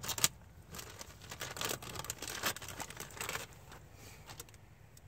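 A package being opened by hand: a sharp click just after the start, then a few seconds of crinkling and tearing rustle that dies down near the end.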